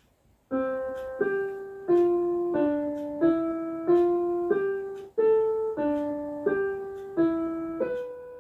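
Intro music: a piano playing a slow, simple melody, one note about every two-thirds of a second, each struck and left to fade. It starts about half a second in.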